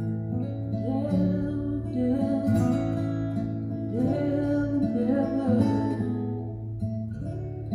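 Acoustic guitar playing a slow, fingerpicked instrumental passage: single plucked notes over a held low bass note.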